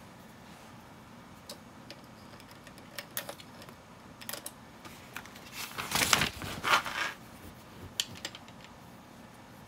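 Plastic LEGO pieces being handled and pressed onto a build: scattered light clicks and ticks, with a busier, louder run of clicking about six to seven seconds in.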